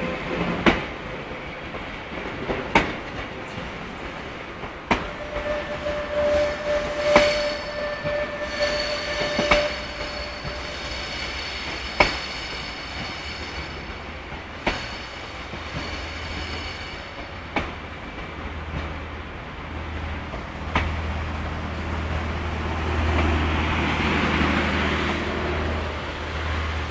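Renfe Elipsos Trenhotel sleeper cars rolling slowly past, their wheels clicking over rail joints about every two to three seconds, the gaps slowly widening as the train slows. A wheel squeal rings out for a few seconds near the first third, and a low hum builds towards the end.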